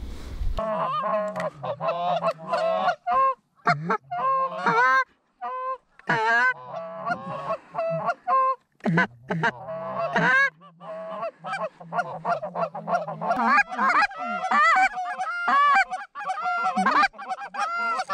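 A flock of Canada geese honking, with many short calls overlapping in quick succession.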